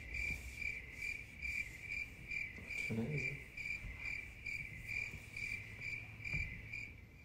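Cricket chirping sound effect: an even run of short, high chirps, about two to three a second, that stops abruptly. It is the comic cue for an awkward silence while an answer is awaited.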